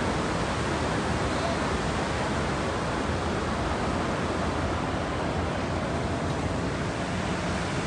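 Steady outdoor rushing noise, an even hiss with a fluttering low rumble and no distinct events.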